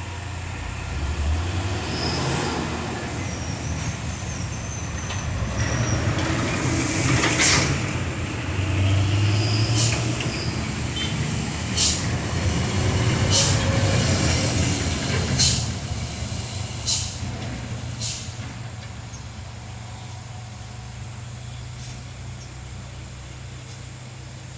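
Diesel engine of a dump truck loaded with stone running steadily, louder in the middle stretch and easing off near the end, with several short air-brake hisses.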